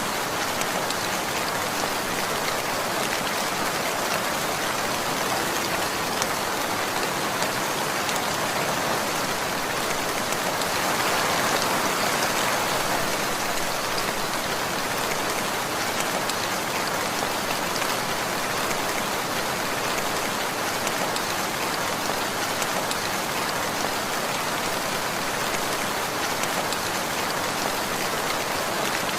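Steady rainfall: an even hiss of raindrops falling on surfaces, swelling slightly about eleven seconds in.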